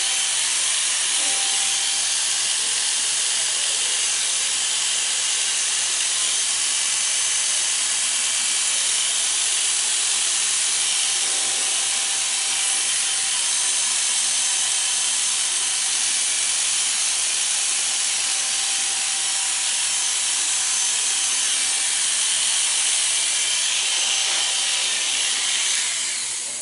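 Corded electric hair clippers running steadily as they cut short hair, a continuous buzzing hiss. They switch off suddenly near the end.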